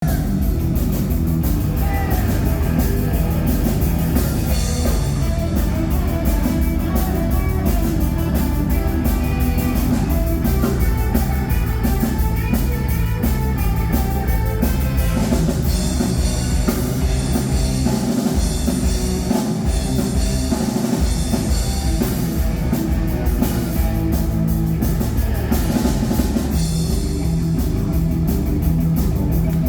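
Rock band playing live, with drum kit, guitar and bass, loud and steady without a break.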